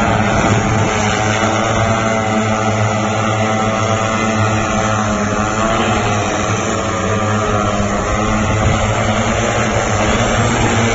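Manned multirotor air bike in flight: its several propellers and motors make a loud, steady buzz of many layered tones.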